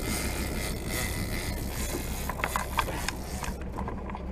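Boat engine running steadily under a hiss of wind and water. Several light clicks come between two and three seconds in, and the hiss drops near the end.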